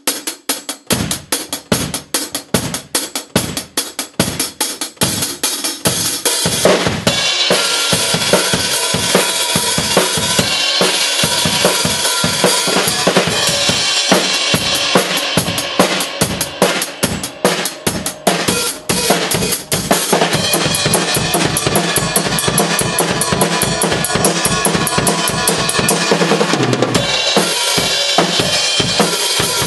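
Drum kit played in a punk beat, the drums alone being tracked for an album. First comes a steady run of separate drum hits, then from about seven seconds in a fast beat under a thick wash of cymbals. The cymbals drop out briefly near the end and then come back in.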